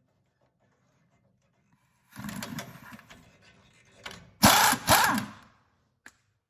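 Impact wrench with a 21 mm socket running in short bursts, loosening the bolts of a truck's front hub assembly: one burst about two seconds in, then two louder ones close together a little later.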